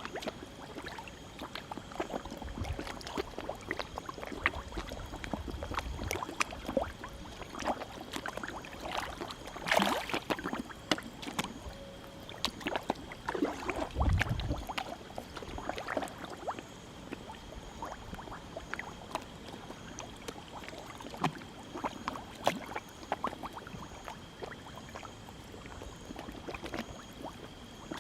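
Many koi splashing and slurping at the water surface as they take feed, in a dense, irregular patter of small splashes with a bigger splash about ten seconds in. A low thump comes about fourteen seconds in.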